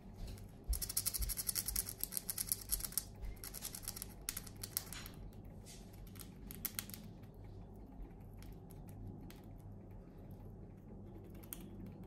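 Eurasian red squirrel gnawing open pine-nut shells from a cedar-pine cone: fast, crisp crunching clicks in a dense run for the first few seconds, then shorter bursts about four and six and a half seconds in, fading to scattered faint clicks after that.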